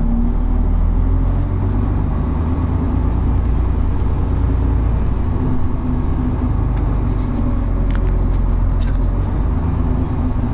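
Interior of a Volvo Olympian double-decker bus with a Voith automatic gearbox on the move: a steady low diesel drone, with a few sharp rattles about three quarters of the way through.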